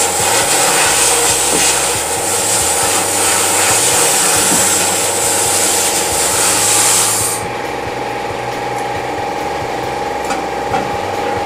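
Sandblasting gun, fed by a venturi media injector, spraying abrasive at a workpiece inside a blast cabinet: a loud, steady hiss of air and grit that cuts off suddenly about seven seconds in. After that a steady hum remains, with a couple of light knocks.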